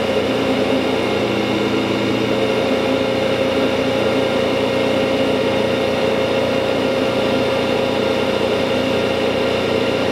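Landis universal cylindrical grinder running with its grinding wheel spinning: a steady machine hum with several constant tones.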